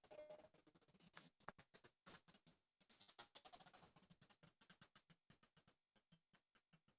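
Near silence with faint, irregular clicking that thins out and stops about six seconds in.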